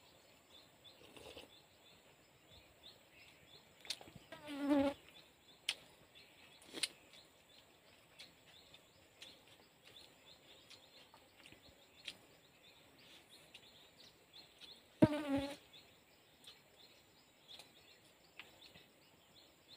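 A fly buzzing past close by, twice and briefly, about five and fifteen seconds in, over a faint background of insects, with a few light clicks.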